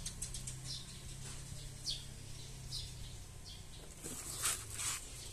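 Faint background of scattered short, high chirps and clicks over a steady low hum, with two louder clicks near the end.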